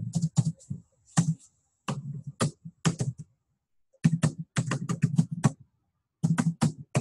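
Computer keyboard being typed on: quick runs of keystrokes broken by short pauses.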